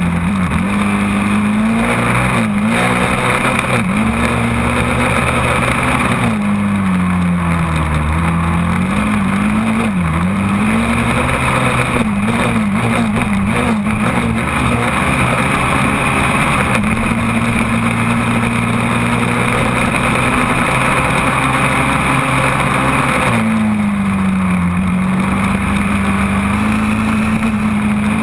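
Quad (ATV) engine running hard while riding through soft dune sand, heard from a camera mounted on the machine. The revs drop and pick up several times, with a quick run of throttle blips partway through, hold steady for a long stretch, then sag and climb again near the end.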